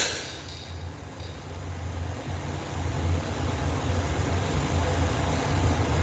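Steady low hum under a constant hiss, dipping in level just after the start and building back up over the next couple of seconds.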